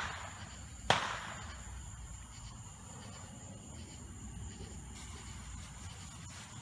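One sharp bang about a second in, with a short echoing tail, over a steady high insect trill. From about five seconds on, the lit fuse of a bottle rocket hisses faintly.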